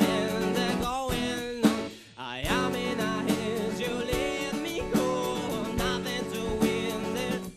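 Live band playing a guitar-led, country-flavoured song, with a wavering melody line over the guitar and a brief drop in the music about two seconds in.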